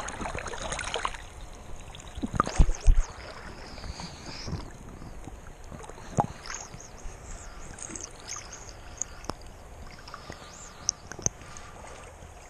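Water sloshing and splashing with scattered knocks and bumps, the loudest cluster about two and a half to three seconds in.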